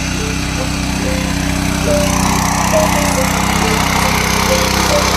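A four-wheel power weeder's small engine running steadily, with background music playing over it.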